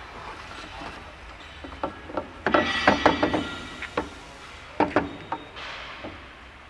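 Irregular sharp knocks and clatter of wood on a woodworking machine, with a dense flurry in the middle and a few single knocks later.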